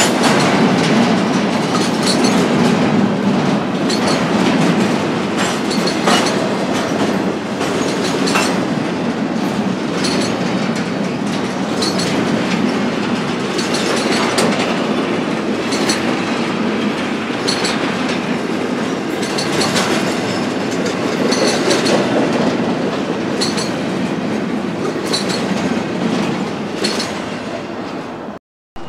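BNSF freight train cars rolling past, wheels clicking irregularly over rail joints above a steady rumble. The sound cuts off abruptly near the end.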